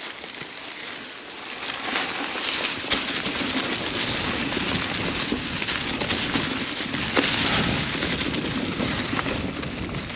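Mountain bike rolling along a dirt trail: a steady rush of tyre and wind noise that grows a little louder about two seconds in, with a few sharp knocks from the bike.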